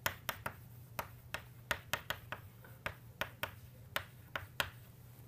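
Chalk tapping against a blackboard in a quick, irregular run of sharp clicks, about three or four a second, as words are written, over a faint steady low hum.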